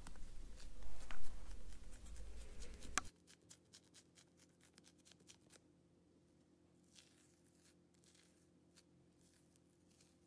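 Soft, close-miked handling noise: small crackles and clicks over a low hum for about three seconds, then an abrupt cut to near silence with only a few faint ticks.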